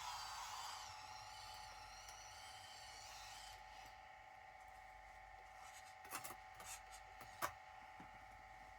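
Near silence: faint room tone with a steady hum, and a few short clicks in the second half, the sharpest about seven and a half seconds in.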